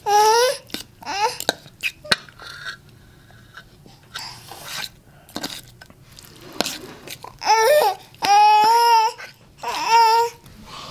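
A young child's high voice babbling and squealing in several bursts, loudest in a long run near the end. A few sharp clinks of a fork and knife on a steel plate fall between the bursts.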